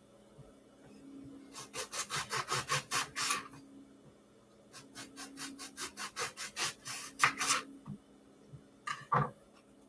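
Two runs of rapid back-and-forth sawing strokes, about five a second, with a short pause between them, then a couple of knocks near the end.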